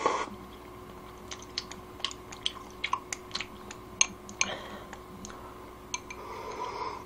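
A person eating kalguksu noodles: a short slurp at the start, then chewing with scattered sharp little clicks, and a soft sip of broth from the bowl near the end.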